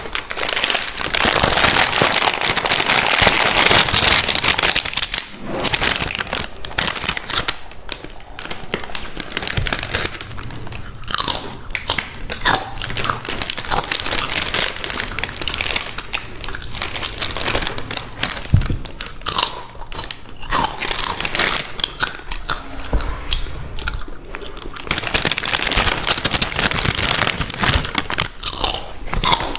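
Close-miked crunching and chewing of crisp Balaji chips. It is dense and continuous for the first few seconds, then comes in separate bites with short pauses, and grows dense again near the end.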